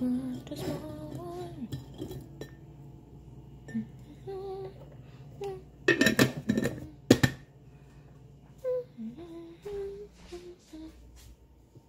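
A person humming a tune in short held notes, while a glass jar clinks as biscotti are taken out of it. The clinking peaks in a clatter of several sharp knocks about six to seven seconds in.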